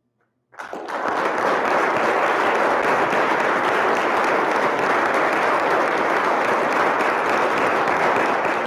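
Audience applause, breaking out suddenly about half a second in after a moment of silence and holding steady and full.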